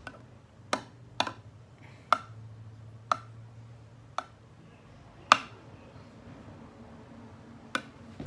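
Metal spoon clinking against a glass dish while stirring glue slime: about seven sharp clicks at uneven intervals, the loudest about five seconds in.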